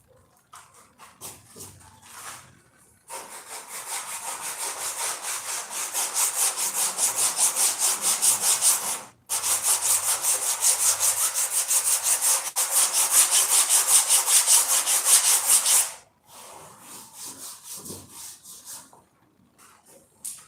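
Hand tool scraping back and forth on a hard surface in quick, even strokes, about three a second, starting about three seconds in, breaking off briefly near the middle, and stopping a few seconds before the end.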